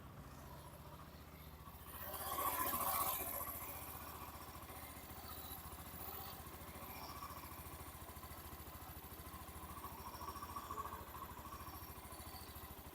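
Hero Xtreme 125R's single-cylinder engine idling steadily with no throttle, heard close to the engine, with a louder swell about two seconds in. It is being checked for the rattling engine noise some owners complain of.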